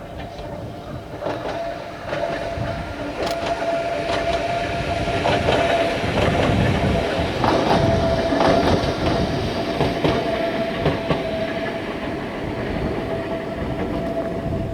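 Ohmi Railway electric train passing, its wheels clicking over the rail joints, with a steady whine over the running noise. Loudest in the middle, easing off toward the end.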